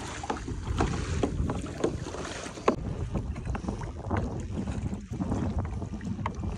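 Choppy water lapping and slapping against a moving kayak's hull, short splashes over a steady low wash, with wind buffeting the microphone.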